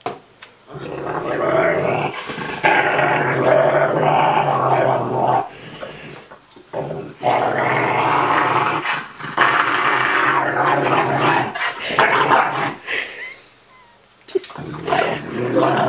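Rottweiler 'talking' while being cuddled: long, low, drawn-out growling grumbles, each lasting several seconds, in about four stretches with short pauses between them. It is a contented sound made under petting, not a threat.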